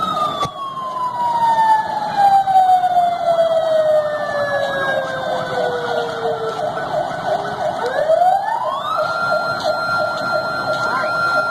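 A police vehicle siren holds one steady tone, then slowly falls in pitch for about seven seconds as it winds down. Near the end it rises quickly back to the same tone and holds.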